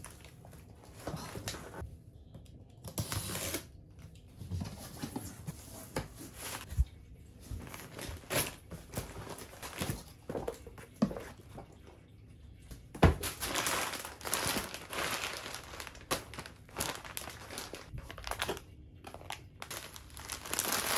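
Irregular crinkling and rustling as something is handled, with a few sharp knocks, the loudest a little past the middle.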